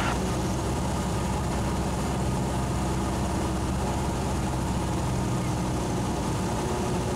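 Cessna 172's piston engine and propeller running steadily, a constant drone heard from inside the cockpit.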